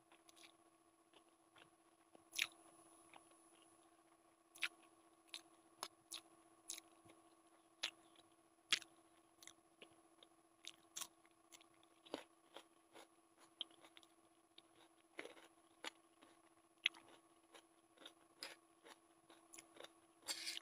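Close-miked eating: chewing and biting Maggi noodles with boiled egg and crunching raw onion, heard as short sharp crunches and clicks about once or twice a second, over a faint steady hum.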